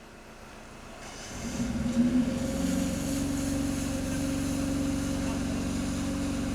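A vehicle engine grows louder from about a second in and then, from about two and a half seconds in, runs steadily at idle.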